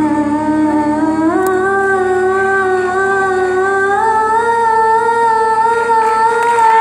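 A young girl singing into a microphone through a PA, holding long notes without words that step up in pitch twice, the last and highest note held to the end.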